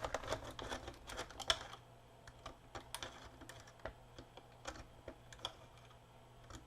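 Irregular light clicks and taps of a small screwdriver and hard plastic parts being handled while opening a plastic action figure, thick in the first two seconds and scattered after that.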